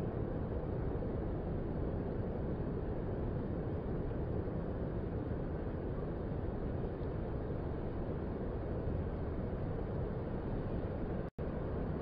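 Steady low rush of gentle ocean surf breaking on the shore, briefly cutting out for an instant near the end.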